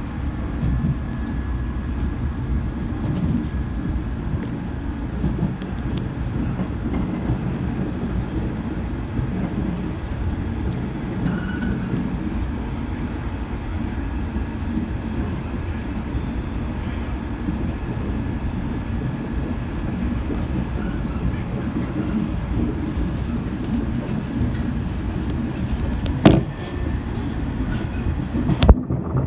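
415 series electric train running on the rails, a steady low rumble with some clickety-clack. Two sharp knocks sound near the end.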